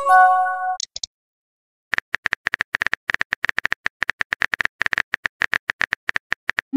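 Phone-messaging sound effects: a short multi-tone chime as a new message bubble appears, then, after a brief pause, a rapid run of keyboard tap clicks, several a second, as a reply is typed. A quick rising swoop starts right at the end.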